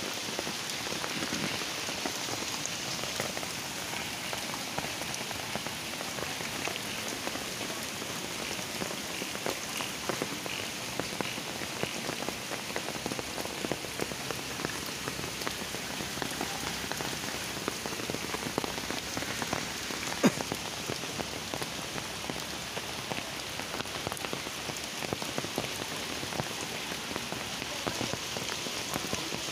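Heavy rain pouring steadily onto trees, leaves and waterlogged ground, a dense, even patter of drops, with one sharper tick about twenty seconds in.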